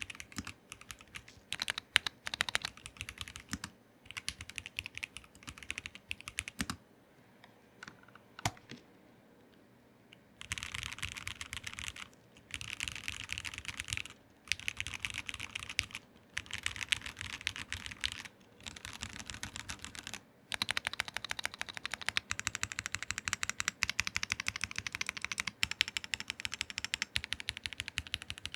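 Keychron V1 Max mechanical keyboard being typed on. Scattered keystrokes with pauses for about the first ten seconds, then fast, steady typing in runs of a couple of seconds, broken by brief pauses.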